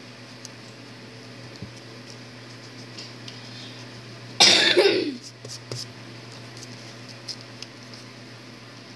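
A person coughing once, about four and a half seconds in: a sudden harsh burst that trails off lower. Faint ticks and a steady low hum sit underneath.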